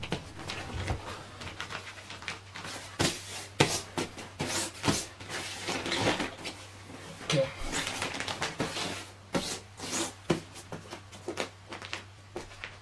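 The deflated Sundom camping mat's ripstop nylon fabric rustling and crinkling in irregular swishes as hands smooth and flatten it out.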